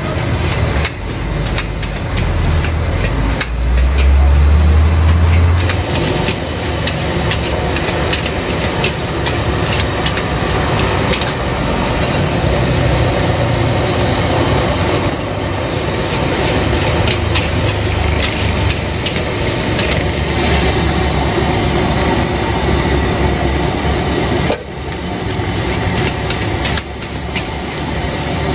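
Fried rice being stir-fried in a wok over a gas burner: a steady hiss and sizzle with the metal spatula and ladle scraping and clinking against the pan. A louder low rumble swells from about two to six seconds in.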